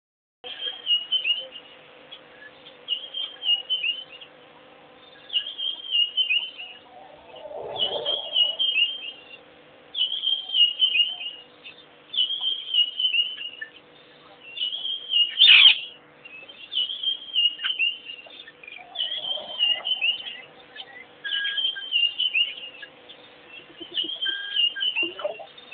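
A bird singing a short, high, descending chirpy phrase over and over, about every one and a half to two seconds. One sharper, louder note comes about two-thirds of the way through.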